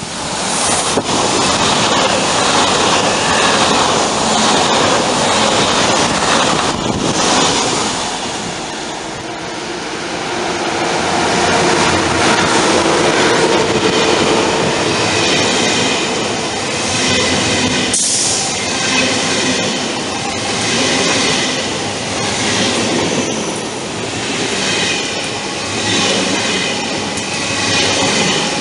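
ICE high-speed train running past along the platform close up: a steady rush of wheels on rails, with a regular clatter in the second half as the carriages roll over the track.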